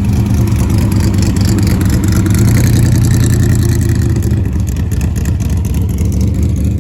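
A vehicle engine running loudly, swelling to its loudest about halfway through and then easing off.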